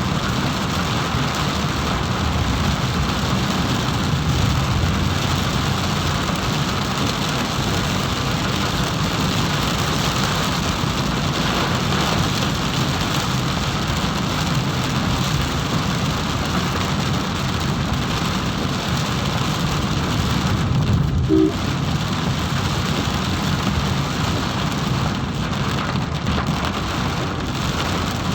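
Heavy rain falling steadily, a dense even hiss and patter.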